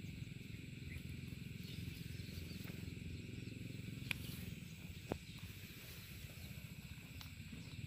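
Quiet rural outdoor background: a steady low rumble and a high hiss, with two sharp clicks about four and five seconds in.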